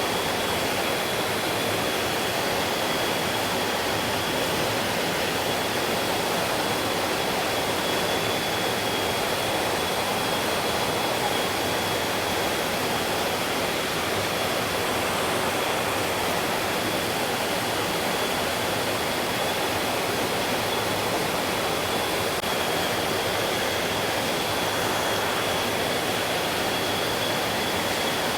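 Stream water flowing in a steady, unchanging rush, with a faint steady high-pitched tone running through it.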